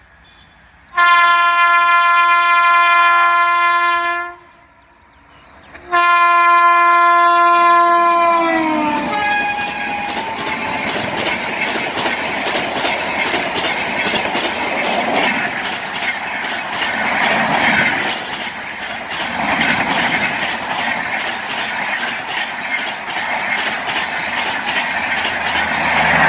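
Passing express train's locomotive air horn sounding two long blasts, the second dropping in pitch as the locomotive goes by. Then the loud rumble and clickety-clack of the coaches running past over the rails.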